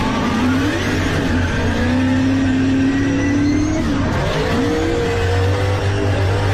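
Drift car's engine revving hard, heard from inside the cockpit, its pitch rising and falling as the throttle is worked, held high for a stretch in the middle, dipping and climbing again a little past four seconds in. Tyres squeal under the engine as the car slides sideways.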